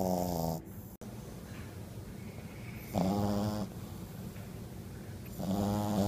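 Sleeping short-muzzled puppy snoring: three short snores about three seconds apart, the first ending just after the start, the second about halfway, the third at the very end.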